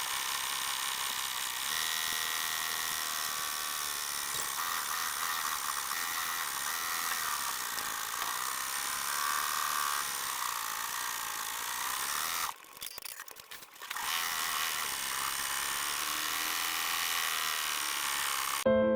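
Embroidery machine stitching at speed: a steady high-pitched whirr that drops away briefly about two-thirds of the way through, then resumes.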